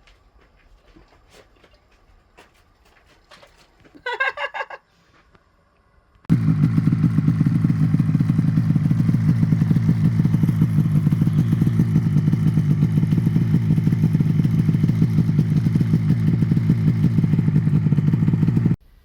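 A brief, loud, rapidly pulsing bird call about four seconds in, then an engine that comes in abruptly a couple of seconds later and runs steadily and loudly until it cuts off suddenly near the end.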